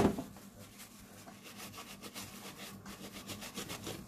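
A knock at the start, then paper tissue rubbing in repeated wiping strokes over a laptop's cooling parts, scrubbing at old thermal paste that has dried hard.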